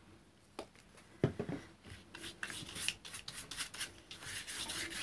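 Bristle paintbrush scrubbing paint across a sheet of card in quick, repeated back-and-forth strokes that start about two seconds in, after a couple of light knocks.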